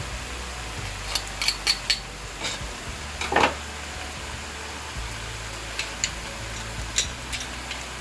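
A metal utensil knocking and scraping against a cooking pan while purslane and garlic are stirred, with scattered clinks, the loudest about three and a half seconds in.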